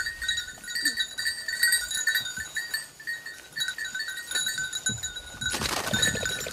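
A small metal bell on a hunting dog's collar clinking irregularly as the dog moves through the cover, with a brief burst of rustling about five and a half seconds in.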